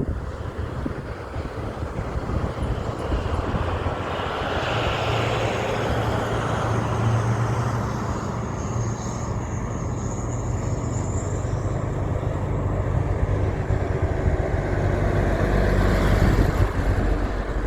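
Heavy truck driving by: a steady low engine drone over road and tyre noise.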